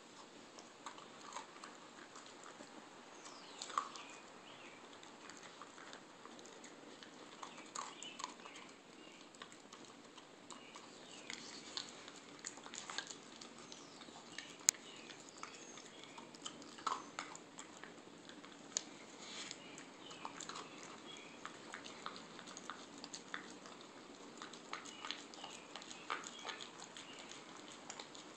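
Rat terrier eating dry kibble from a plastic bowl: irregular small crunches and clicks of chewing and of kibble knocking against the bowl, with one sharper click about halfway through.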